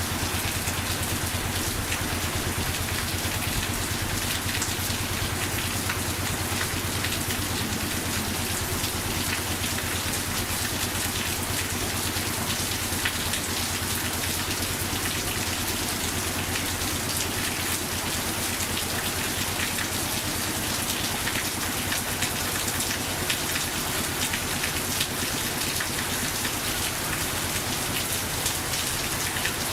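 Steady heavy rain pattering on surfaces, with the diesel engine of a Quick G3000 Zeva two-wheel tractor running steadily underneath as a low, even drone.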